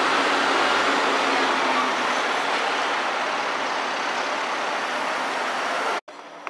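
Gold Coast G:link light-rail tram, a Bombardier Flexity 2, running away from the stop, its steady running noise slowly fading as it recedes. The sound cuts off suddenly near the end.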